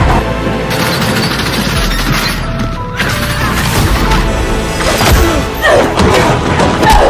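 Loud, dense music with crashing, smashing impact sounds mixed in, and several sharp hits in the second half.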